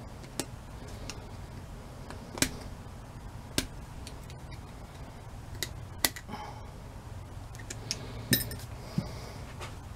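Sharp metallic clicks and clinks, about six spaced irregularly, the loudest about 2.5, 6 and 8.5 seconds in, as needle-nose pliers and small steel parts knock against a Weasel starter motor being reassembled. A steady low hum runs underneath.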